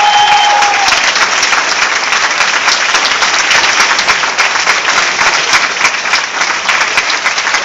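Audience applauding, a dense, steady clatter of many hands clapping. A held musical note ends about a second in.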